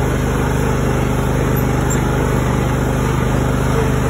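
John Deere L130 riding mower's 23 hp V-twin engine running steadily as the mower drives along, with an even drone and no change in speed.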